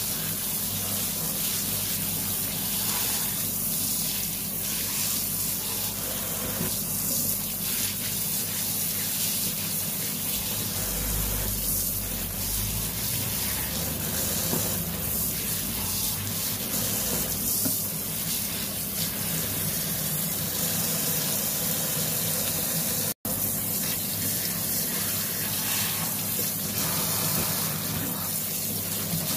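Kitchen tap running steadily into a stainless steel sink, the stream splashing over button mushrooms being rinsed by hand in a plastic colander. The sound cuts out for an instant about three-quarters of the way through.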